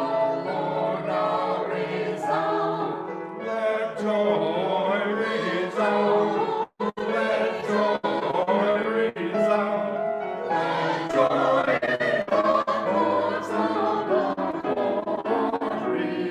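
Full church choir singing in parts, many voices together. The recording drops out for a split second about a third of the way in.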